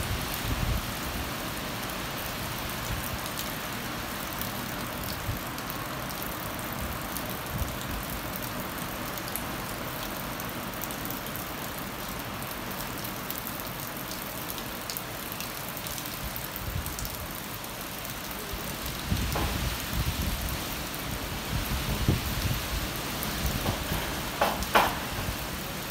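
Heavy hurricane rain falling steadily, a constant hiss. From about two-thirds of the way in, low rumbling gusts come and go, with a few sharp ticks near the end.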